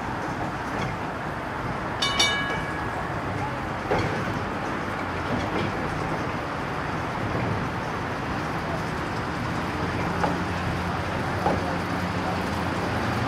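Essannee rail grinder tram running slowly along street tram track with a steady low rumble of motor and wheels. There is a short metallic ring about two seconds in, and a few sharp clanks as the wheels cross the track work.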